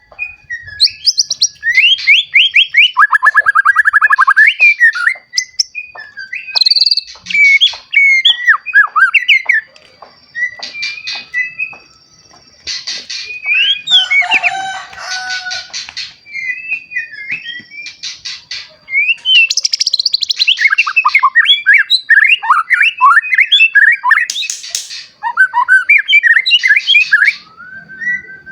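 White-rumped shama, a young bird fresh from its first moult, singing a loud, varied song of fast whistled trills and rattling phrases, with harsher chattering notes near the middle.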